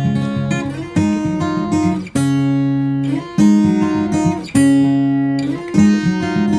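Background music: acoustic guitar strumming chords with a steady rhythm.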